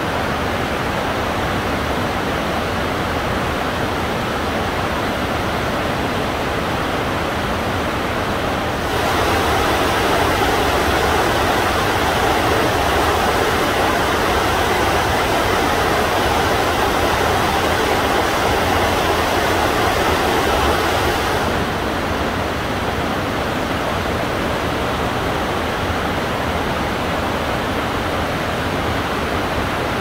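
Large waterfall at heavy flow: a steady roar of falling and churning water. The roar becomes louder and brighter for about twelve seconds in the middle, then drops back to its earlier level.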